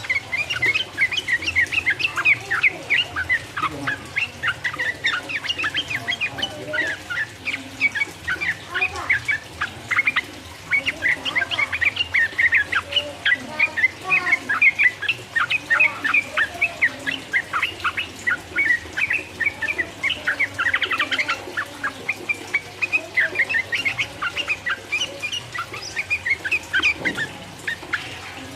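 Yellow-vented bulbul (trucukan) singing a long, rapid, unbroken run of short chirpy notes: the 'ropel' song, used as a lure to provoke rival bulbuls.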